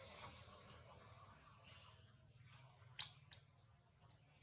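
Near silence broken by a few short, sharp clicks, the two loudest about three seconds in and a third of a second apart.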